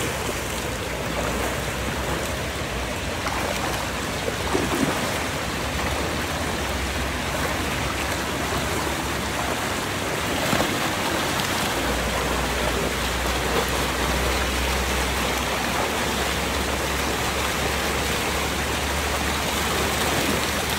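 Water rushing steadily over a low weir and churning in the shallow stream below, with a couple of brief louder splashes.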